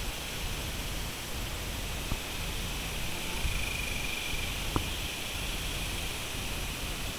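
Steady outdoor hiss with a low, fluttering wind rumble on the microphone, and a couple of faint knocks as the horses' hooves shift on the trailer floor, the clearest a little under five seconds in.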